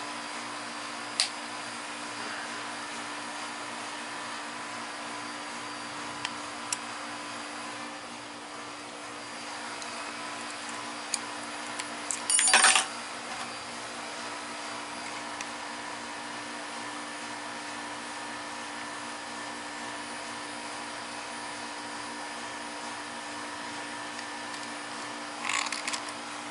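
Steady machine hum, with a few scattered metal tool clicks and a louder clatter about halfway through and again near the end, as bolts are worked out of the engine with an Allen bit.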